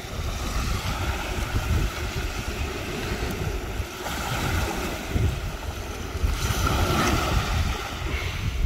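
Wind rumbling on the microphone over the steady wash of surf.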